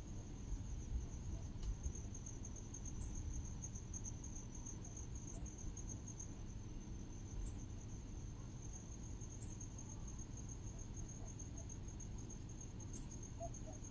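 Insects calling at dusk: a steady, high, pulsing trill, with a separate short, higher chirp about every two seconds, over a low rumble.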